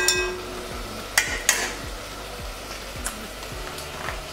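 Vegetable masala sizzling softly and steadily in a cast-iron Dutch oven. A steel spoon clinks against the pot with a short ring right at the start, and there are two sharp clicks about a second in.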